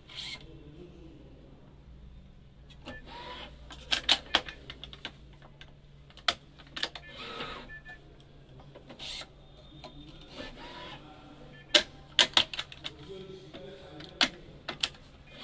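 Badminton racket stringing machine at work: irregular sharp clicks and snaps as the string clamps are set and released, with a few short rasping pulls of string through the frame.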